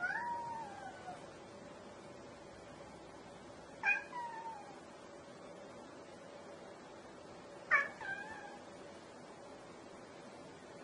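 Domestic cat meowing three times, about four seconds apart, each meow short and rising then falling in pitch.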